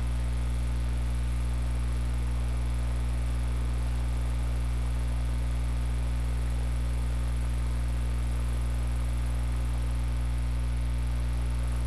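Steady low hum with an even hiss over it, the drone of a blimp's engines heard from inside its gondola in flight.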